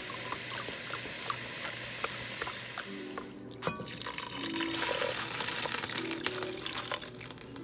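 Chicken broth pouring steadily from a carton into a glass measuring cup, then, after a brief break about three seconds in, poured from the cup into a Dutch oven of cooked sausage and onions, splashing and foaming.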